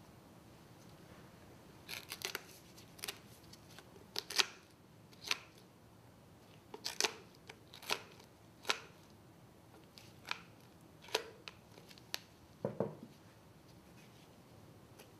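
Bone cutters snipping through costal cartilage beside the sternum of a small animal's carcass. About a dozen sharp, separate cuts come at irregular gaps of roughly half a second to a second and a half, starting about two seconds in.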